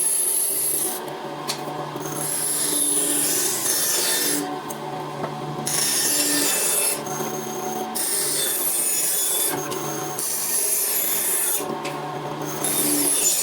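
A tool rasping and rubbing on wood over a steady motor hum, in segments a few seconds long that change abruptly.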